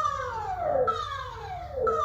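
Emergency alert warning tone: a downward-sliding siren-like tone that falls from high to low over almost a second and restarts at the top about once a second, over a low rumble.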